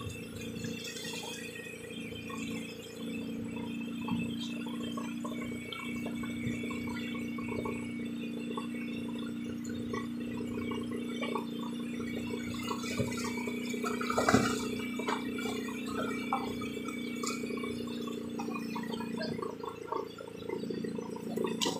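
Steady hum of a fishing boat's motor, several pitched tones holding level, with small splashes of water against the wooden hull and one sharper knock about fourteen seconds in.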